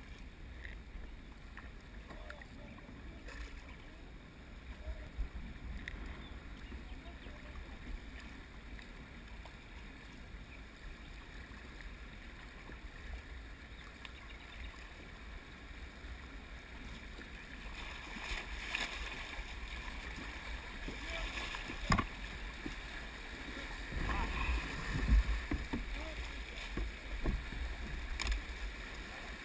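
Water rushing and splashing around a plastic kayak on a river, over a steady low rumble. About two-thirds of the way through the rush grows louder as the kayak runs into a rapid, with a few sharp knocks and splashes near the end.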